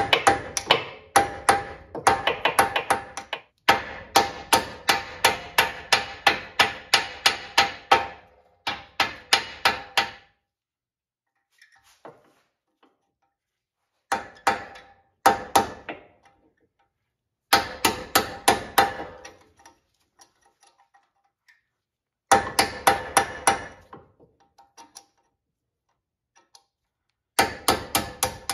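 Hammer striking a punch to drive a front brake caliper pin out of a Lexus GX470 caliper: quick runs of ringing metal-on-metal taps, about four a second, broken by short pauses.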